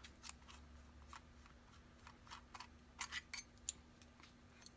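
Faint, scattered plastic clicks and taps from hands handling a wearable gimbal and opening its battery compartment cover. A cluster of clicks comes about three seconds in, over a faint steady hum.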